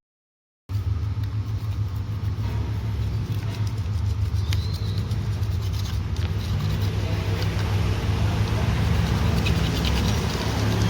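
A steady low mechanical rumble with faint scattered ticks, starting abruptly after a moment of silence.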